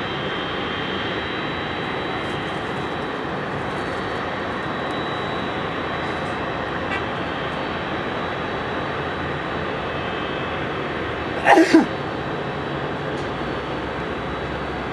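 Boeing 777-300ER's GE90 jet engines at taxi power, a steady rushing hum with a faint high whine. About two-thirds of the way through, two short, loud sounds falling in pitch cut in over it.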